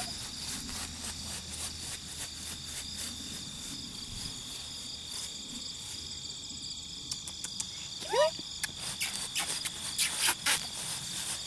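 Steady high-pitched chorus of insects, with a tabby kitten giving one short rising meow about eight seconds in. A run of clicks and rustles follows near the end.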